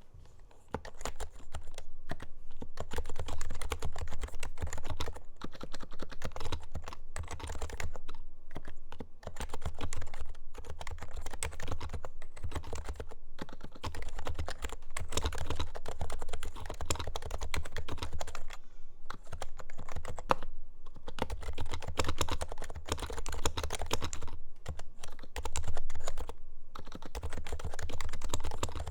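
Typing on an HHKB Hybrid Type-S keyboard with silenced Topre electrostatic-capacitive switches: a steady run of keystrokes broken by a few short pauses.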